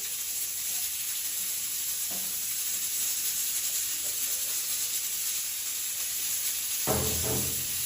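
Cooking oil sizzling steadily in a hot pan, freshly topped up and heating before the fish goes in.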